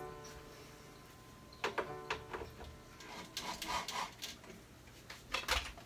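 Cordless drill run in short bursts against a plywood stand, a brief whine at the start and again about two seconds in. Clicks and rattles of small hardware being handled follow.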